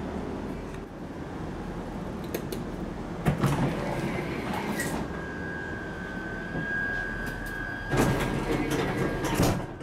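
Steady low running rumble inside a moving Class 165 diesel multiple unit. About three seconds in, the toilet's powered sliding door opens with a loud noisy rush. A thin steady high tone starts about five seconds in, and two loud clunks come near the end.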